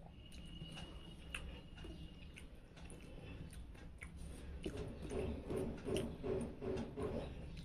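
Fingers working rice on a steel plate, with soft clicks and taps of fingertips against the metal and some chewing. A thin high tone sounds for about two seconds near the start. In the second half a run of short pitched calls, about three a second, is the loudest thing.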